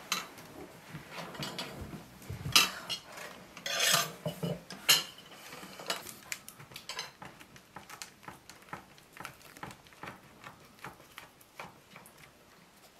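Dishes and cutlery clinking and knocking on a wooden table, then a knife cutting through a baked apple tart's pastry crust in a run of short, regular strokes, about two or three a second.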